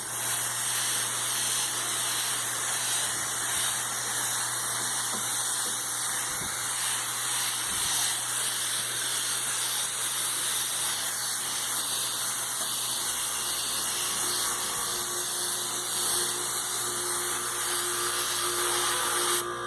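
Paint spray gun run off a homemade air compressor, hissing steadily as it sprays paint over a low steady hum. The spray cuts off near the end.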